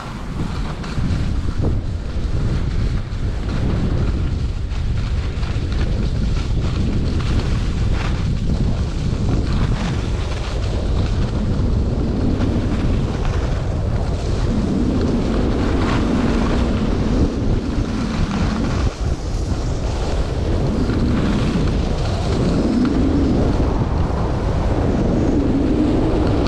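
Wind buffeting the microphone of a camera carried by a skier going downhill, with skis scraping and hissing over groomed snow.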